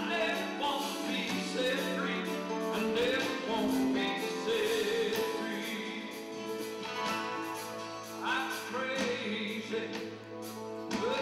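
Live band music: acoustic guitars and an electric bass playing, with singing.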